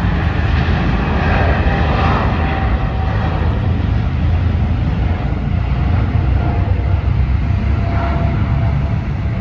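Jet airliner engines heard across the airfield: a loud, steady rushing noise with a deep rumble underneath.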